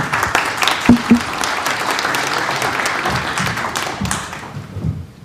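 Audience applauding, starting at once and dying away near the end. Two short low thuds about a second in.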